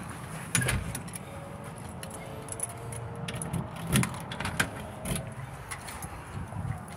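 A few sharp clicks and knocks, about half a second in and again around four and five seconds in, from a house door and its latch being handled, over a steady low hum.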